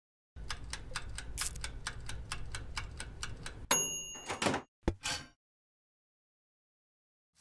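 Toaster oven running with a low hum while its timer ticks about four times a second. After about three and a half seconds the timer bell dings once, followed by a few short clunks.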